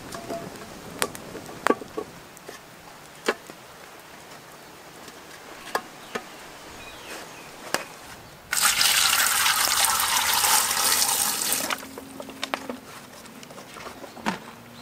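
Water pouring for about three seconds, starting and stopping abruptly, the loudest sound here. Scattered sharp clicks and knocks come before and after it.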